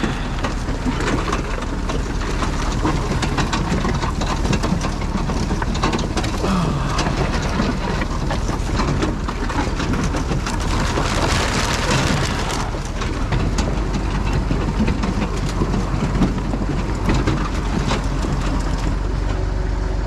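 Massey Ferguson 711 potato harvester at work: a continuous rattling clatter of its moving webs and rotating picking table with soil, stones and potatoes tumbling through, over the low steady run of the tractor engine pulling it.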